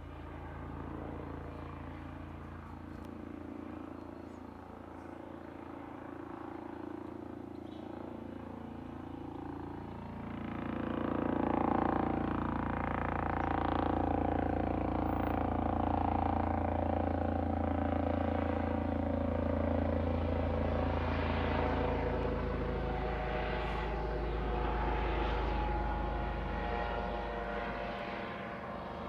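Police Scotland helicopter circling overhead: a steady rotor and engine drone that grows louder about ten seconds in as it comes closer, with a slight bend in pitch, then eases near the end.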